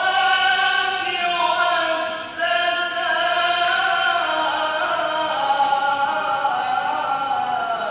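A man's solo voice reciting the Quran in the melodic, ornamented tilawah style, through a microphone: long held notes that slide and waver from pitch to pitch, with a short break for breath about two seconds in, the phrase ending at the close.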